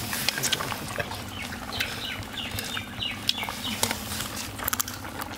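Short bird calls, a run of brief falling chirps or clucks in the middle, amid scattered sharp clicks and taps.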